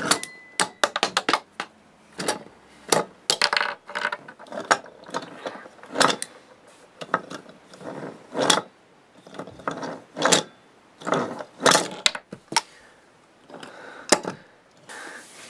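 Small plastic monster truck toys being pushed and handled on a wooden tabletop: irregular plastic clicks, clacks and short rattles from the toys' wheels and bodies.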